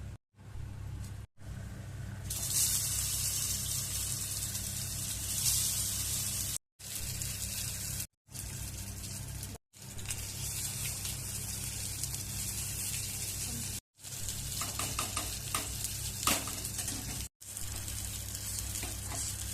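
Veg kababs sizzling as they fry in a pan, in several short stretches broken by sudden cuts, over a steady low hum. A few light clicks come near the end.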